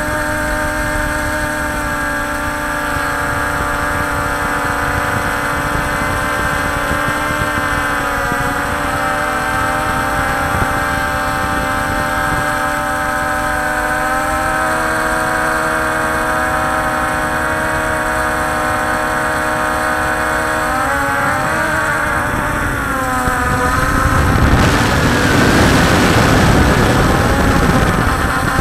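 Multirotor camera drone's electric motors and propellers whining steadily while it hovers, recorded from the drone itself, with several close pitches drifting against each other. About twenty seconds in the pitches shift as it manoeuvres, and a louder rushing noise joins them near the end as it moves off over the water.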